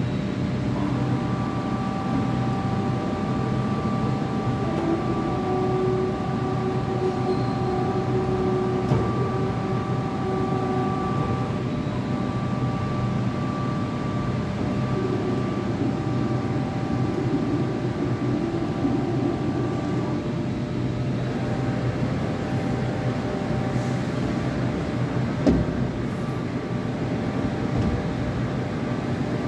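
Okuma MCV 20A II CNC gantry milling machine running: a steady mechanical hum with several whines that come and go as its drives work, and a single knock about 25 seconds in.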